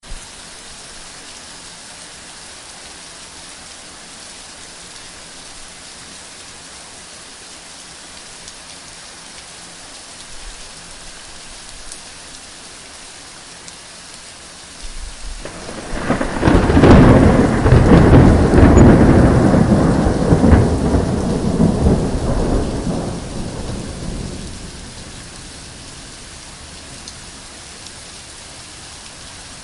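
Heavy rain falling steadily, with a thunder clap about halfway through that swells into a loud, deep rumble for several seconds before dying away back to the rain.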